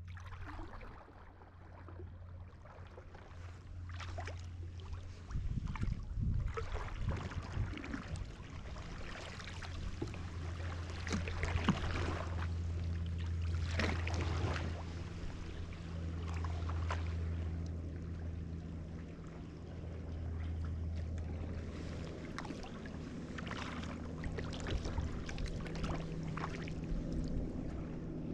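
Kayak paddle blades dipping and pulling through calm sea water, a splash and drip every second or two, over a steady low hum.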